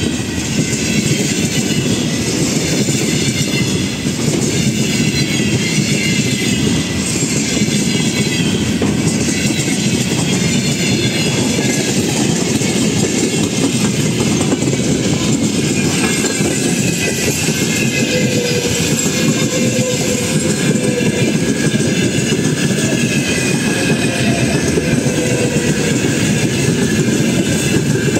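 A train rolling past on the track, its wheels clattering steadily over the rail joints with a continuous loud rumble.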